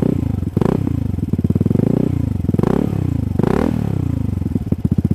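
Motorcycle engine running through a Shijiro aftermarket racing exhaust, idling with a strong pulsing beat and blipped up in revs three times, about half a second, two and a half and three and a half seconds in, each time falling back to idle.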